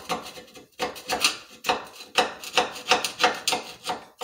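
Screwdriver tip scraping across a fresh steel weld bead in quick repeated strokes, about four a second, to clean it off in place of a wire brush.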